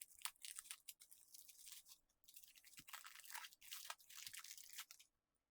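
Faint, scattered crackles and light clicks of packaging and small parts being handled.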